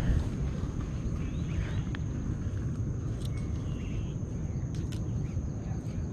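Outdoor ambience: a steady high-pitched tone over a low rumble, with a few faint clicks.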